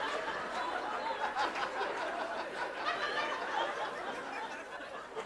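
Theatre audience laughing and chuckling, a scattered murmur of many people.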